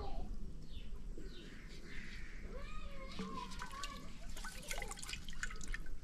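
Water dripping and splashing into a water-filled metal pot of freshly caught fish, with a quick run of small drips and splashes about four and a half seconds in.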